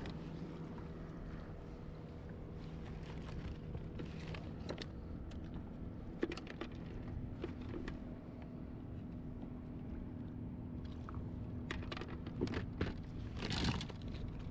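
Small fishing boat on the water: a steady low motor hum over a bed of water and wind noise, with scattered light clicks and knocks and a brief noisy rush near the end.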